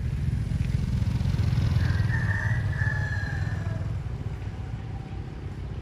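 Small motorcycle engine running, its low pulsing rumble growing to its loudest about two seconds in and then fading.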